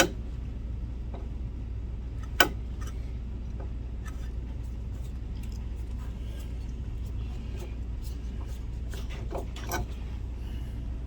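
Scattered sharp metal clicks and clinks of small hand tools working at a broken-off screw stuck in a projector's lamp-housing screw hole, the loudest about two and a half seconds in and a quick cluster near the end. A steady low hum runs underneath.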